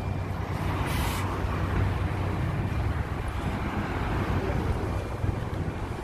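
The engine of an old 1999 Volvo city bus idling at a stop, a steady low hum, with a short hiss about a second in.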